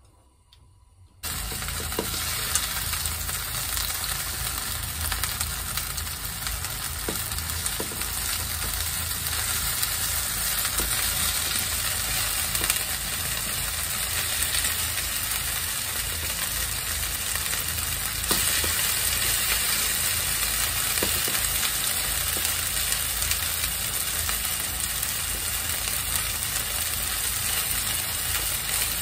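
Shrimp sizzling in a non-stick frying pan as chopsticks turn them, with a few light clicks. The frying starts about a second in.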